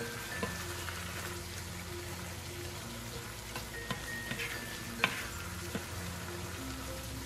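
Light background music over a simmering pan of squash, shrimp and malunggay stew, hissing and bubbling as it is stirred with a wooden spoon. A few sharp knocks of the spoon against the pan come through, the loudest about five seconds in.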